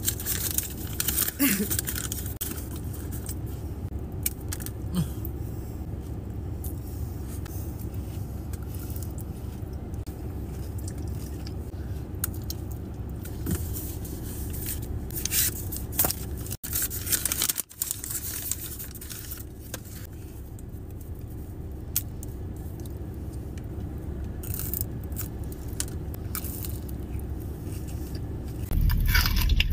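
Chocolate bar packaging being handled: scattered crinkles and taps of cardboard and foil, over a steady low hum inside a car.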